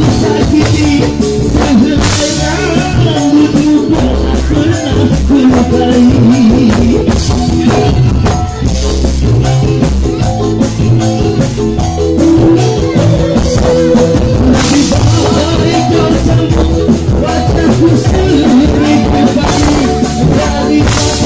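Live dangdut band playing loud amplified music with a drum kit, electric guitar and keyboard, and a male singer's voice at times.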